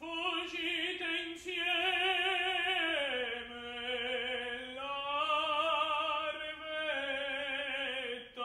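Operatic tenor singing long held notes with wide vibrato, the line stepping down in pitch about three seconds in.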